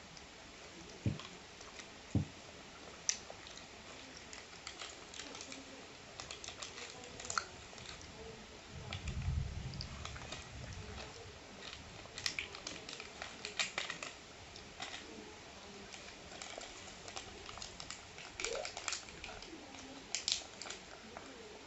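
Quiet chewing and mouth sounds of someone eating amla (Indian gooseberry), with scattered small clicks and crinkles, and a short low rumble about nine seconds in.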